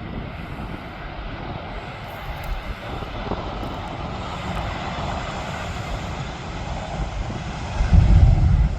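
Jet engines of a Transavia Boeing 737 on approach, a steady rumbling roar of jet noise. Near the end a brief, much louder low rumble covers it.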